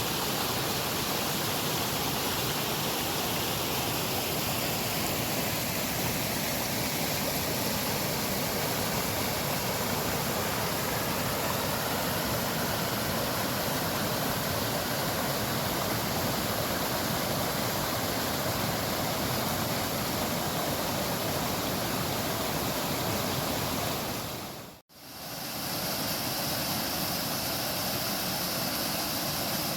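Waterfall: a steady rush of falling water. It fades out briefly near the end and comes back as a similar rush with more hiss in it.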